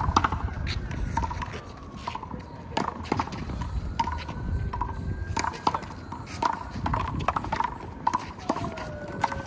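Handball rally: a rubber handball smacked by open hands and slapping off the wall, a string of sharp, irregular smacks about one or two a second.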